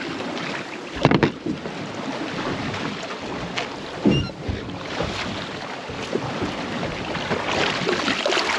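Wind on the microphone and water lapping against a small boat's hull, the wash growing louder near the end. Two sharp knocks sound on the boat, about one second in and about four seconds in.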